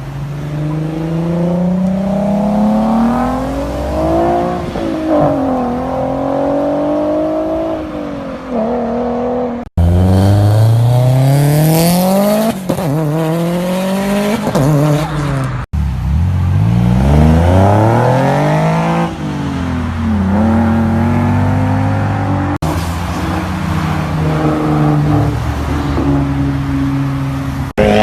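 Car engines accelerating hard in a run of short clips, the pitch climbing and dropping back again and again as the cars rev and shift. The sound breaks off and a new car starts about a third of the way in, again just past halfway, and once more near three quarters of the way through.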